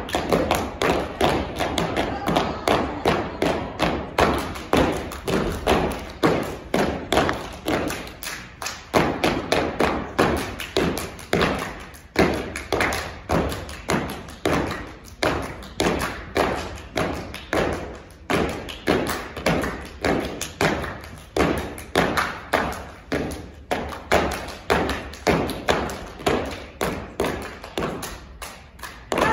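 Step-team routine with no music: feet stomping on a stage floor and hands clapping, in a rhythm of about three hits a second, with a brief break about eight seconds in.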